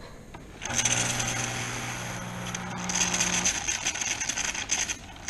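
Jura Impressa C5 coffee machine venting through its steam nozzle: the pump hums and water and steam hiss out, starting about a second in. The pump hum stops after about three and a half seconds, and the hiss carries on a little longer before cutting off.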